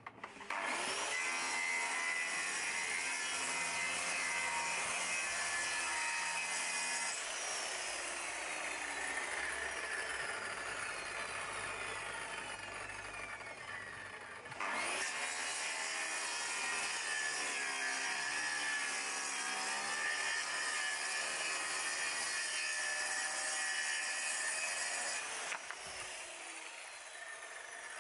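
WORX track saw running along its guide rail and cutting through plywood, with a brief break about halfway through; the saw stops near the end.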